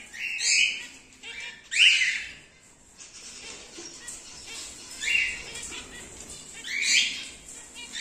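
Cockatiels calling: four loud, high-pitched calls, each a short sweep, two in the first two seconds and two more after a gap of about three seconds.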